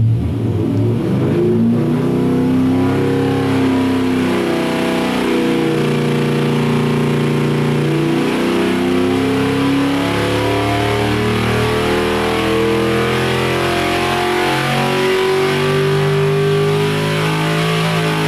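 AMC 401 V8 engine making a power pull under load on an engine dynamometer. Its pitch climbs steadily as it sweeps from about 1,650 rpm to about 6,350 rpm.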